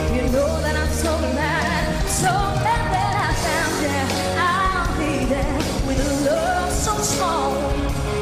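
A woman singing a pop song live into a handheld microphone, her voice a spinto soprano, with a band backing her. Her long held notes waver with vibrato.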